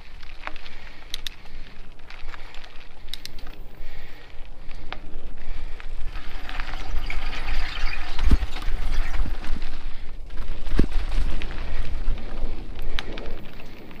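Mountain bike ridden along a dirt trail: tyres rolling and crunching over dirt and dry leaf litter, with wind rumbling on the camera microphone. Two hard thumps from bumps land about eight and eleven seconds in.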